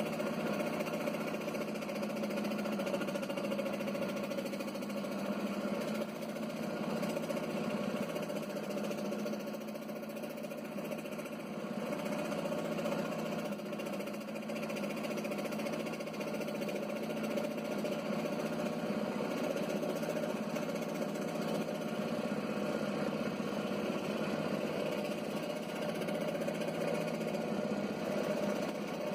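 Scroll saw running steadily, its reciprocating blade cutting a letter shape out of thin white sheet material.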